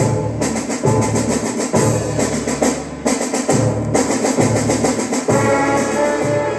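Music from a stereo demonstration LP on a turntable: a drum kit keeps a steady beat, about one low drum hit every 0.85 s. About five seconds in, sustained chords from other instruments come in over it.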